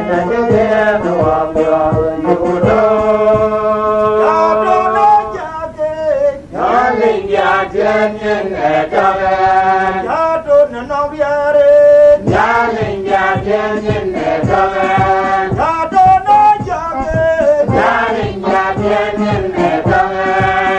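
Dinka gospel song: voices singing a chant-like melody with long held notes.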